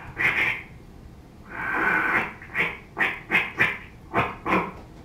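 A man's voice making vocal sound effects into a microphone: a short sound, a longer one about two seconds in, then a quick run of short, nasal bursts.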